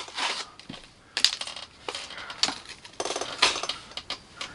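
Handling noise on a tabletop: scattered light clicks and taps, with a short burst of crinkling rustle about three seconds in.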